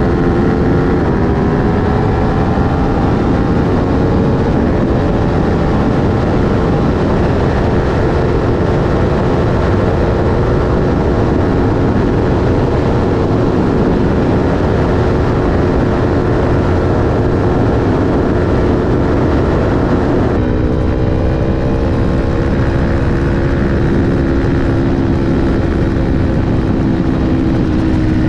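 Aprilia Tuono V4 1100's V4 engine with an Akrapovic slip-on exhaust pulling hard at highway speed, over heavy wind rush. About twenty seconds in the pitch drops suddenly as it shifts up a gear, then climbs steadily again.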